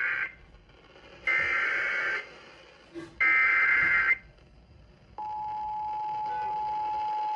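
Emergency Alert System header: three short bursts of screeching digital data tones, then about five seconds in a steady two-tone attention signal begins, announcing an incoming warning.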